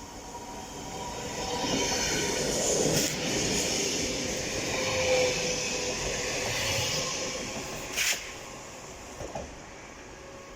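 A train passing on the rails, growing louder and then fading away, with its wheels squealing thinly as it goes by. A single sharp click about eight seconds in.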